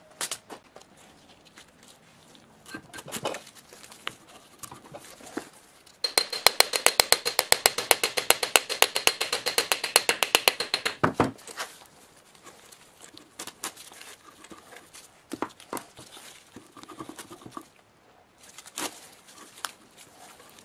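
Metal tools and parts of an old electric motor clicking and knocking as it is taken apart by hand. About six seconds in comes a rapid, even run of metallic clicks, some ten a second, lasting about five seconds and louder than anything else. Scattered single knocks come before and after.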